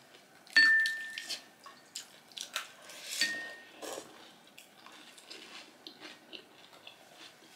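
Metal spoons clinking against ceramic bowls: a sharp, briefly ringing clink about half a second in and a softer one around three seconds, with lighter taps between. People chewing panipuri.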